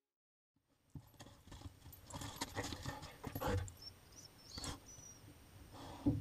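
Husky at the doorway of a wooden, straw-bedded dog house, its paws and nose knocking and scraping on the wood and straw as it sniffs in, starting about a second in. A few short high squeaks come in around the middle.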